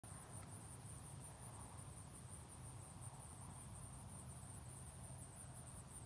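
Faint, steady high-pitched insect chorus, with a low rumble underneath.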